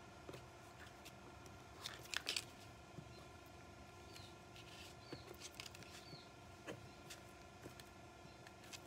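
Faint steady room hum with a few soft clicks and snips of small scissors cutting and handling paper, the clearest cluster about two seconds in.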